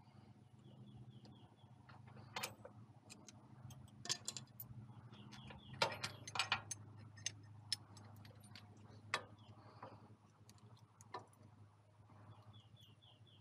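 Faint, scattered metallic clinks and taps as a steel pin, washer and cotter pin are worked out of a tractor stabilizer mount with hand tools, with a quick cluster of clinks about six seconds in.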